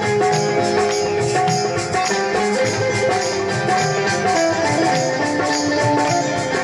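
Live devotional folk music: a harmonium plays a held melody over a hand drum and jingling percussion keeping a steady beat.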